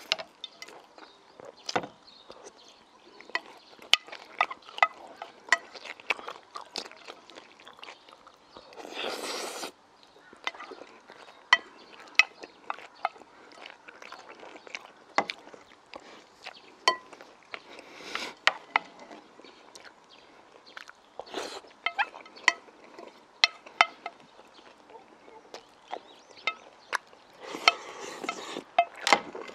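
Close-up eating sounds: chopsticks and a wooden spoon clicking against a plate, with chewing and mouth sounds in between. A few short slurps stand out, the last near the end as the sauce is drunk from the tipped-up plate.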